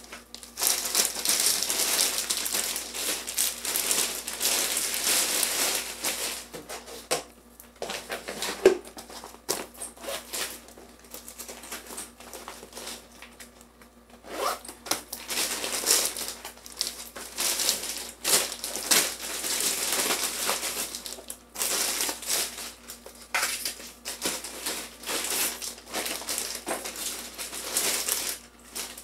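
A clear plastic bag crinkling and rustling as it is handled and opened by hand. It comes in stretches of a few seconds, with short pauses between them.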